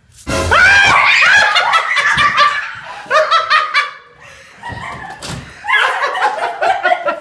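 A girl's high-pitched laughter in quick repeated bursts, breaking out suddenly just after the start, dying down around the middle, and starting again near the end.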